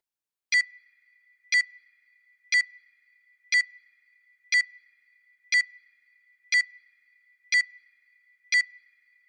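Countdown timer sound effect: a short, high electronic ping once a second, nine in a row, each ping marking one second ticking off the countdown.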